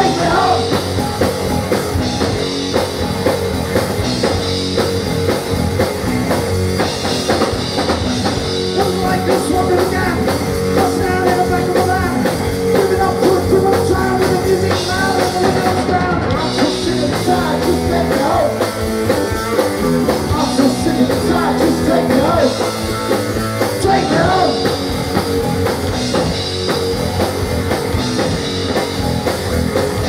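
Live rock band playing loudly: distorted electric guitars over a drum kit, with a singer's voice in the mix.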